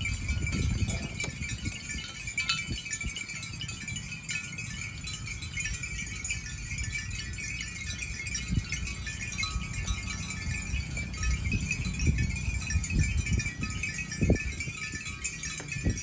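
Many small bells on a herd of walking water buffalo jingling in a continuous, overlapping chime, with soft irregular low thumps underneath.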